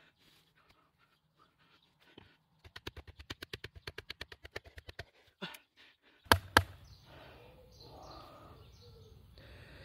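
Batoning a log round: a wooden baton striking the spine of an Albainox fixed-blade knife driven into the wood. A fast run of light knocks, about eight a second, lasts about two seconds, then two loud sharp knocks come close together a little past the middle.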